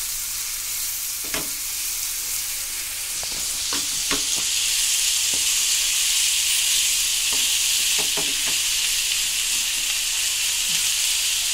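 Salted, spiced chicken pieces sizzling in oil in a frying pan as their water cooks out, stirred with a wooden spatula that knocks and scrapes against the pan now and then. The sizzle gets louder about four seconds in.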